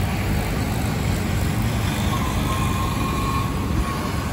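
Steady city road traffic noise, a continuous low rumble of passing vehicles. A faint high held tone rises out of it about two seconds in and fades about a second and a half later.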